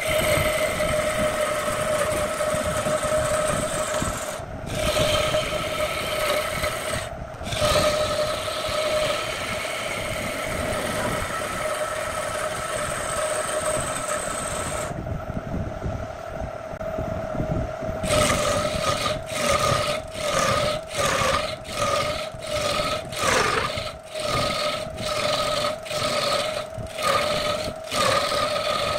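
Belt-driven wood lathe running with a steady hum while a hand-held turning tool cuts into a spinning wooden blank, throwing shavings. The cut breaks off briefly twice early, stops for about three seconds in the middle leaving only the lathe's hum, then comes back as short repeated strokes, one or two a second.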